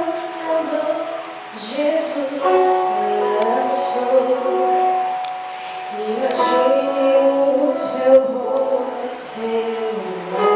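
Voices singing a melody over musical accompaniment.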